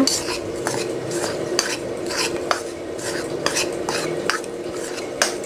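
Metal spoon stirring dry flour and cornstarch in a plastic bowl: short, irregular scraping strokes with light clinks of the spoon against the bowl.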